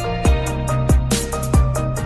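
Electronic background music with a steady beat of deep thumps and sharp high ticks over held synth tones.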